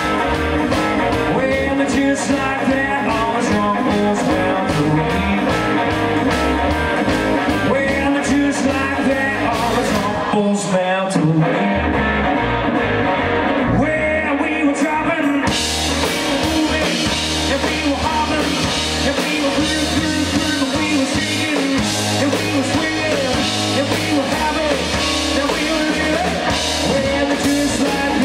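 Live rock-and-roll band playing with guitar, bass and drums. About ten seconds in the drums and bass drop out for a short break, and the full band comes back in about five seconds later.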